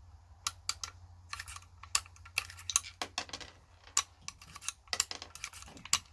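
Irregular light metallic clicks, several a second, from a Heritage Rough Rider single-action .22 revolver carbine being handled after firing: typical of turning the cylinder and working out spent cases and loading rounds.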